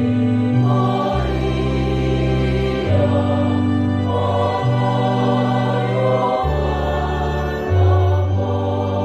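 Choir singing a hymn with organ accompaniment, the organ holding long bass notes that change every one to two seconds under the voices.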